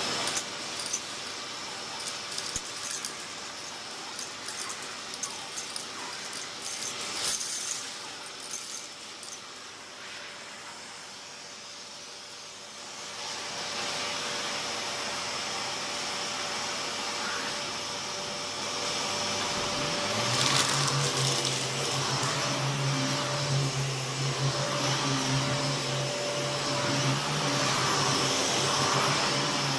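Miele S7000 upright vacuum cleaner running with a steady rushing noise. Sharp clicks scatter through the first several seconds, the sound grows louder about 13 seconds in, and a steady low hum joins about two-thirds of the way through.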